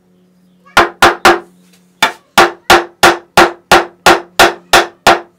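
Brass-headed fret hammer tapping fret wire down into its slot in a guitar fretboard. Three quick taps come first, then after a short pause a steady run of about three taps a second, each with a short ring.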